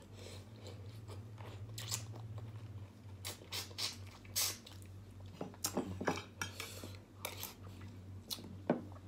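Close-up chewing of chicken and rice, with wet mouth sounds and small crunches and clicks scattered through, over a steady low hum. Near the end a spoon and fork pick at food in a glass dish.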